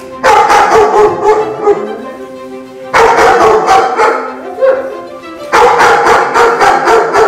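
German Shepherd barking in three loud bouts of rapid barks, over background music.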